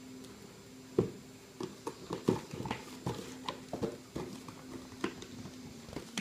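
Irregular knocks and clicking taps of a Kuvasz puppy moving about on a wooden floor, its paws and claws striking the boards, starting about a second in.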